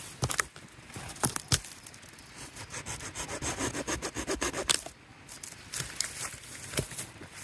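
Wood being sawn by hand in quick rhythmic strokes, loudest about halfway through, among sharp cracks and knocks of wood.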